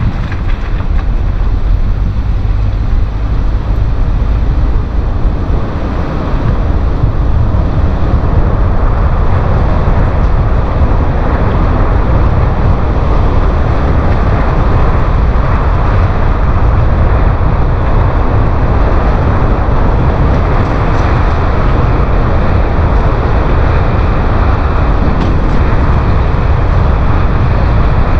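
Steady rush of wind over the microphone together with the rumble and hiss of tyres from a vehicle travelling along a wet tarmac road.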